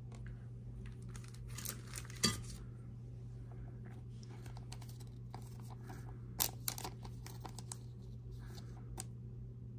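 Handling of a trading card and a clear plastic penny sleeve: soft crinkling and rustling of the thin plastic with a few light clicks and taps. A steady low hum runs underneath.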